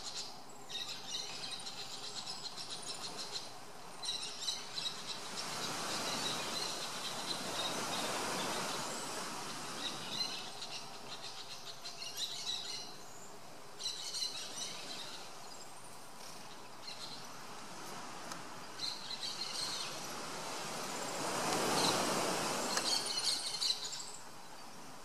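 Birds chirping in short bursts of quick, high, repeated notes over an outdoor background, with a broad rushing noise that swells up and fades twice, once about a quarter of the way in and again, loudest, near the end.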